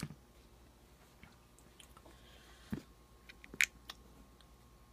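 A few light clicks and knocks from a clear plastic tackle box of hooks and lures being handled, the two loudest a little under a second apart, with quiet room tone between.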